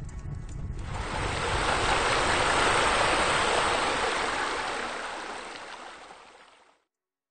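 Rushing water sound effect that swells up over the first couple of seconds with a low rumble underneath, then fades away to silence shortly before the end.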